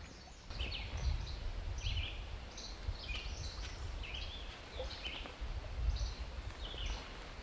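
Birds chirping in the woods: many short, high, repeated chirps over a steady low rumble.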